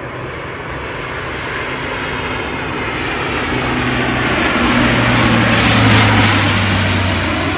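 Dash 8-400 twin-turboprop airliner passing, its engine and propeller sound growing louder to a peak about six seconds in. A low hum drops in pitch as it goes by.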